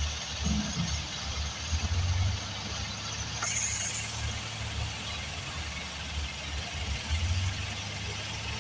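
Heavy machine's engine running at low speed: a steady, uneven low rumble with hiss over it. A short high-pitched tone sounds briefly about three and a half seconds in.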